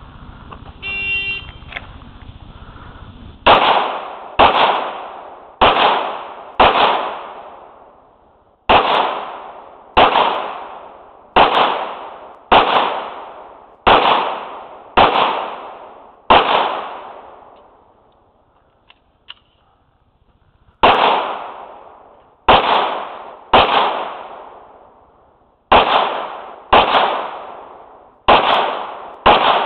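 A shot timer beeps about a second in, then a pistol fires eleven shots at about one a second, each ringing out with a long echo. After a pause of about four seconds with a single small click, it fires seven more at the same pace.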